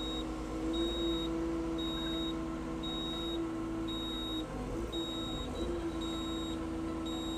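XCMG XE490DK 50-ton excavator running as it works its boom and bucket: a steady engine and machine drone with a strong steady whine that dips briefly past the middle. A short high beep repeats about once a second throughout.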